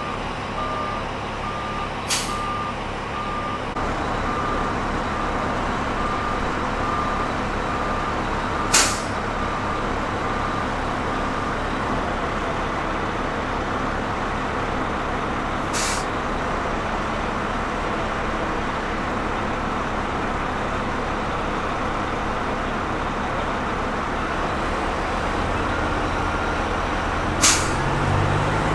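Heavy lifting vehicle's diesel engine running steadily, with a repeating reversing beep that stops about twelve seconds in. Four short sharp hisses come at intervals, and near the end the engine grows louder and deeper.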